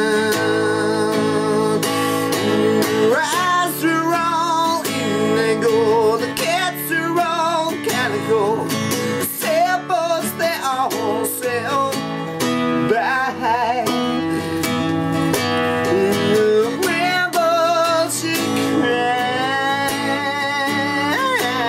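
A man singing held, wavering notes with strong vibrato over a strummed Maton acoustic guitar.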